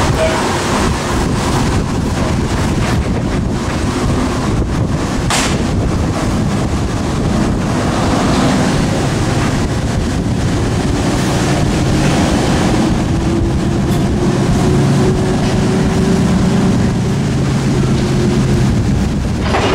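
Class 03 diesel shunter's eight-cylinder Gardner engine working as it pulls coaches away, with the coaches rolling past on the rails; the engine note rises a little in the second half. Wind buffets the microphone throughout, and a single sharp click comes about five seconds in.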